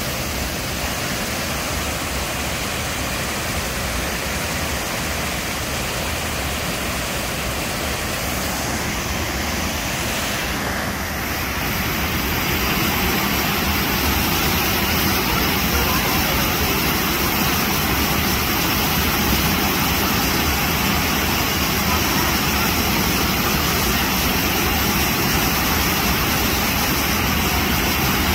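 Waterfall running, a steady rushing roar that grows louder about twelve seconds in.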